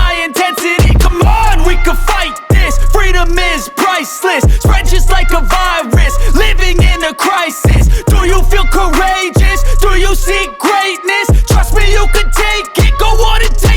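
Hip hop background music with heavy bass hits and a steady beat, with a sung or rapped voice over it.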